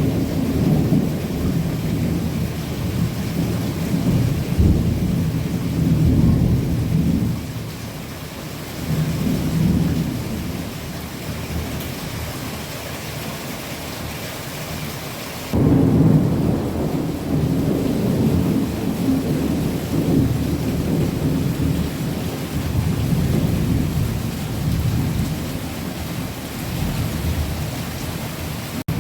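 Torrential rain with low rolling rumbles of thunder that swell and fade; the sound jumps suddenly louder about halfway through.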